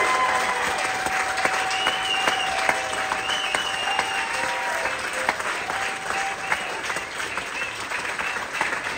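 Theatre audience applauding, dense and steady clapping.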